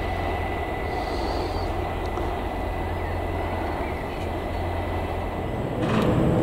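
Works-railway diesel shunting locomotive running with coil wagons: a steady low engine rumble. About six seconds in the sound cuts to a louder, closer hum.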